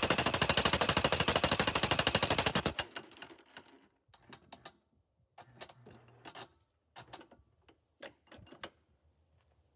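Harbor Freight jackhammer in a custom-built pounding machine hammering rapidly on a black ash log, cutting off about three seconds in. Scattered light knocks follow.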